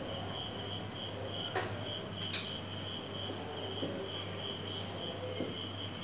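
Chirping insect: a steady high-pitched chirp pulsing evenly about three times a second over a low steady hum, with two faint clicks about one and a half and two and a half seconds in.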